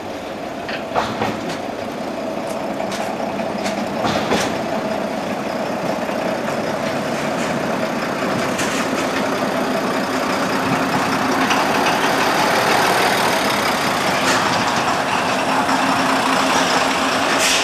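A Deutsche Reichsbahn class 772 railbus with its second car rolling slowly past, its underfloor diesel engine running with a steady hum that grows louder as it draws near. A few sharp clicks from the wheels on the track are heard along the way.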